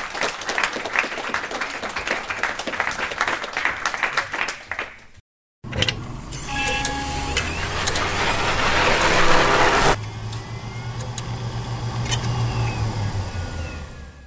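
Audience applauding for about five seconds. It cuts to a moment of silence, then a synthetic outro sound: low drones under a swelling rush of noise that stops abruptly about ten seconds in, followed by a lower hum with a few clicks.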